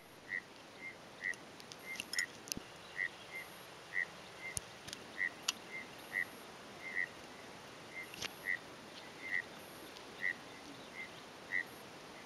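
A small animal calling in the bush: short whistle-like pips repeating about twice a second at uneven spacing, with a few faint clicks.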